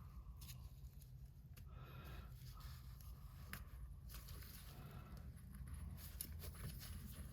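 Faint scraping and a few small clicks from hand work on a turbocharger's split seal ring as it is worked off its groove, over a steady low hum.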